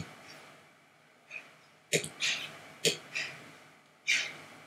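A computer mouse clicking: three sharp clicks, one right at the start and two more about 2 and 3 seconds in. Short hissy puffs of noise fall between and after the clicks.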